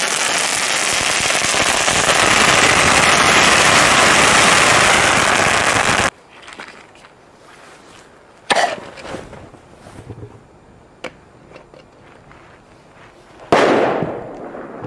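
A large ground firework burning in a tall flame fountain, with a loud, dense, continuous crackle that cuts off suddenly about six seconds in. Then a quieter stretch with a sharp pop a couple of seconds later and a single firecracker bang near the end that dies away over about a second.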